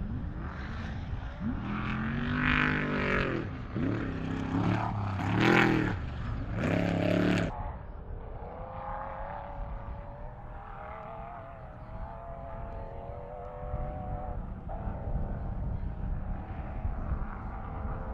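Off-road race vehicle engines. In the first half there are several loud passes, each engine note rising and falling in pitch. After that a fainter engine holds a steadier note that climbs slowly.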